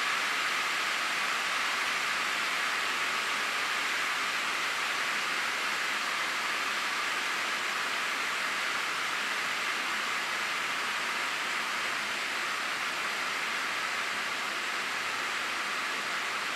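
Steady hiss of air feeding a kinetic sculpture of latex forms as they slowly inflate and deflate. The hiss is even throughout, bright and airy, with little low end.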